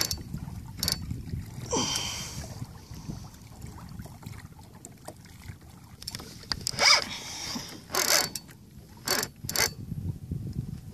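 Wind rumbling on the microphone over open water, with scattered clicks and knocks from the kayak and fishing tackle while a hooked fish is fought under heavy rod pressure. The loudest cluster of knocks comes about seven seconds in.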